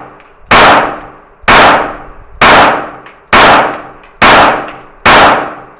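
A string of gunshots fired at a steady pace, about one a second, six in all, each very loud with a short echoing tail.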